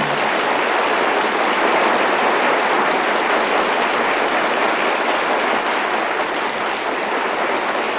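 Studio audience applauding at the end of an act, a dense, steady clapping on an old radio broadcast recording.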